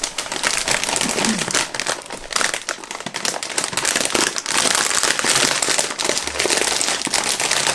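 Plastic crisp packet crinkling and crackling continuously as hands handle it and pull its sealed top open.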